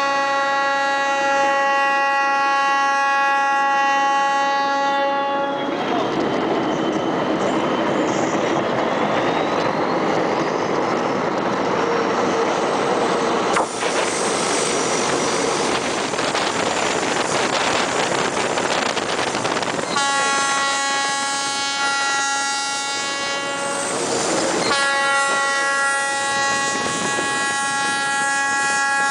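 Diesel locomotive's horn sounding long, steady blasts: one at the start, and two more in the last nine seconds with a short break between them. In between, the train's running noise of wheels on rails and rattling carriages.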